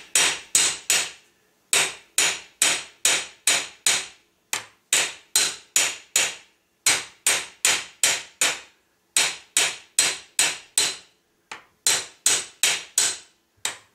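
Hand hammer striking the head of a cut nail set in a drilled steel plate in a bench vise. Quick, sharp metal-on-metal blows come about three a second in short runs with brief pauses, drawing the nail head out into a pyramid shape.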